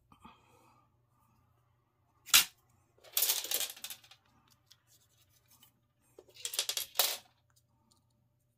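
Fishing rod sections clicking and clattering against each other and on the table as they are handled. There is a sharp click about two seconds in, a second of rattling after it, and another spell of clicks ending in a sharp one about seven seconds in.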